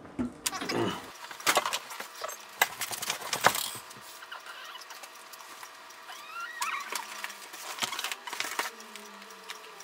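Handling of food packaging: a plastic water bottle set down, then irregular crackling, clicks and rustles of cardboard slider boxes and paper wrappers, thickest over the first few seconds and again later.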